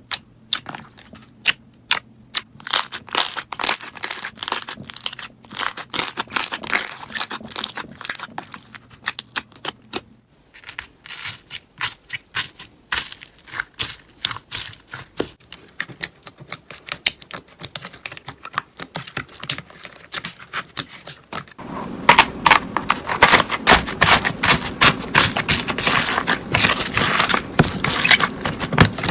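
Slime being squished and poked by hand, making rapid wet clicks, pops and crackles in three stretches, the last one louder and denser.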